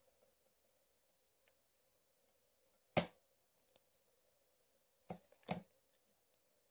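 Black Sharpie ultra-fine felt-tip marker dabbing and rubbing on paper, over a faint steady hum. There is one sharp knock about three seconds in and two softer knocks about five seconds in.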